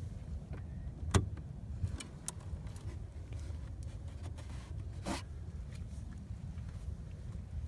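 Hands working on a truck door's mirror wiring: one sharp click about a second in, a few lighter ticks, and a short scraping rasp around five seconds in, over a steady low rumble.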